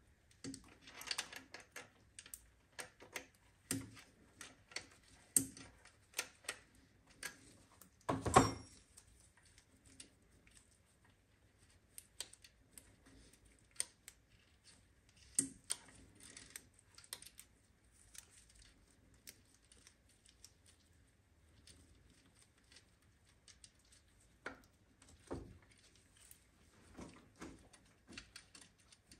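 Scattered light clicks and taps of things being handled, irregular and quiet, with one louder knock about eight seconds in.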